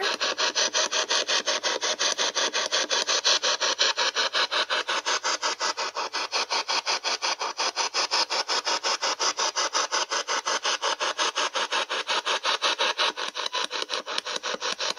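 Rapid, evenly spaced pulses of static hiss, about six a second, going on without a break.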